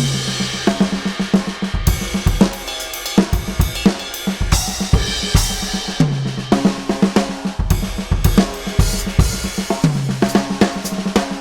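Sampled acoustic drum kit from Addictive Drums 2, triggered live from an EFNOTE 5 electronic kit, played as a continuous groove of kick, snare, hi-hat and cymbals.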